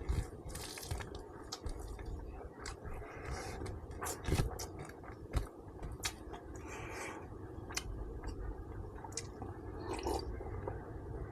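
Close-up chewing of braised pork ribs in sticky soy-sauce gravy: soft wet smacks and scattered mouth clicks, with a couple of sharper clicks around the middle.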